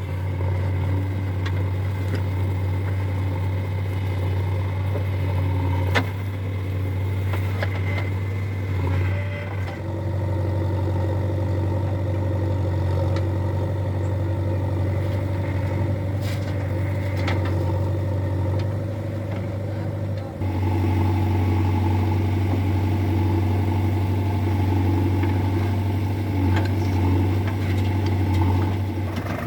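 Heavy diesel machinery engine running steadily with a low drone, with a few sharp knocks. The sound shifts abruptly twice, about a third and two thirds of the way through.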